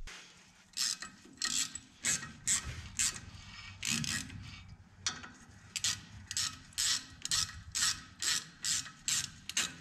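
Hand ratchet clicking in short rasps, about three a second, with a brief pause near the middle, as the nuts on the front hub studs are run down.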